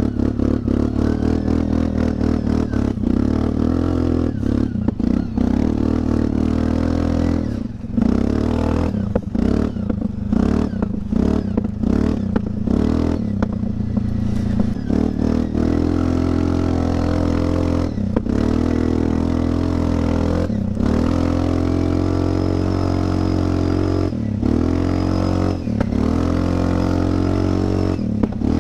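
Linhai 400S Dragonfly ATV engine running through a cheap aftermarket fake Akrapovic exhaust while the quad is ridden. The revs rise and fall with the throttle, with several quick throttle closings and reopenings, most of them in the second half.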